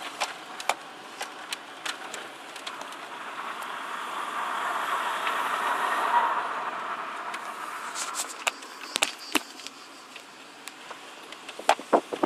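Cabin ventilation blower of a TDI car, a whooshing hiss that swells over a few seconds and dies away again, with scattered clicks and a burst of clicking near the end. This is the blower noise that the owner is showing as a problem.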